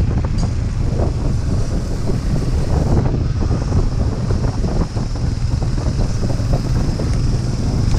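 Wind buffeting the microphone over the running single-cylinder engine of a Suzuki Gixxer 155 motorcycle, ridden at about 30 km/h over a rough dirt and gravel road. It is a steady, loud noise with no break.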